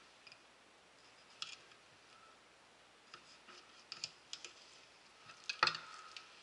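Fillet knife cutting through a bluefish fillet on a bamboo cutting board to take out the pin bones: scattered light clicks and taps. Near the end comes one louder knock as the knife is laid down on the board.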